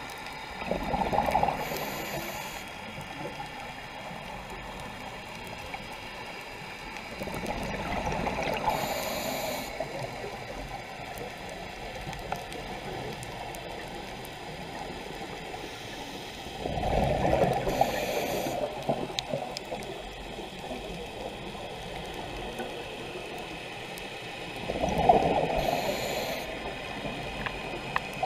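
A scuba diver breathing through a regulator, heard underwater: a bubbling rush of exhaled air comes four times, about every eight seconds, with a steady hiss between breaths.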